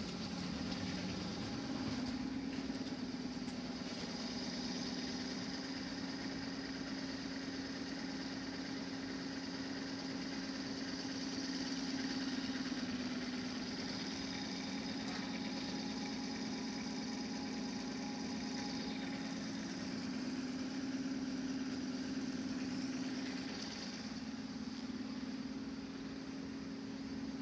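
Steady hum of a Moscow suburban electric train, one even low tone with a faint hiss above it.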